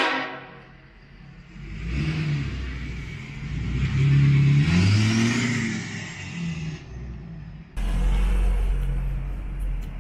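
Lifted 2017 Ford F350's 6.7 L Power Stroke diesel with a 5-inch straight-pipe exhaust accelerating away. The rumble builds about two seconds in and is loudest around four to six seconds in, pitch climbing then dropping as it shifts. After a sudden change near the end it settles to a steadier low rumble.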